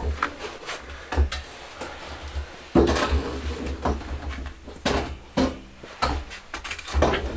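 Irregular knocks, scrapes and clatters of hard objects being handled and set down, in short runs, busiest from about three seconds in.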